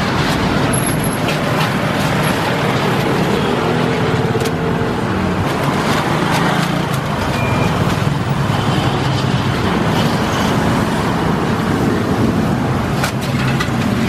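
Mee goreng frying in a charcoal-fired wok, with a metal spatula scraping and tapping the pan, over a loud, steady low rumble. A few sharp taps stand out, two close together near the end.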